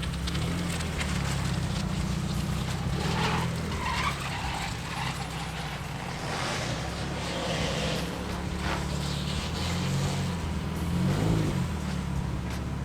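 Subaru Forester XT's turbocharged flat-four engine running at low revs as the car creeps slowly in reverse, with an intermittent crackle over the engine.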